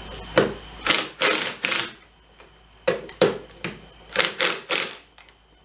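Cordless impact wrench run in a series of short bursts, tightening the nuts that hold a leveling spacer to the top of a truck's coil-over strut.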